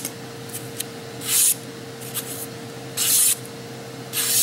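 A sharp kitchen knife slicing through a sheet of paper held in the hand, three quick swishing cuts about a second and a half apart.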